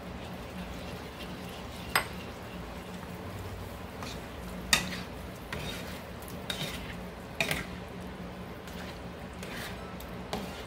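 Cooking utensil clinking and scraping against a pan as vegetables are stirred in a thickening cornstarch sauce, in scattered knocks with the sharpest about two seconds and about five seconds in, over a steady low hum.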